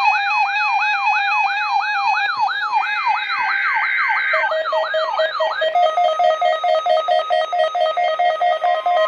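Weather radio alert alarms set off by the weekly test signal, several electronic tones sounding at once. A fast rising siren-like sweep repeats about three times a second, with a buzzing data burst of the test code over it. About halfway through it gives way to a rapid pulsing beep with steady higher tones on top.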